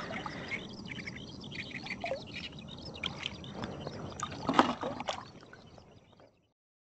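Small splashes and trickling water around a float tube, an irregular patter with a louder splash about four and a half seconds in. The sound fades out about six seconds in.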